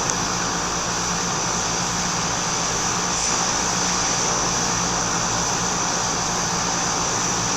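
Outdoor heat pump units running: a steady whooshing drone with a low hum, unchanging throughout. A heat pump is in its defrost cycle, giving off steam.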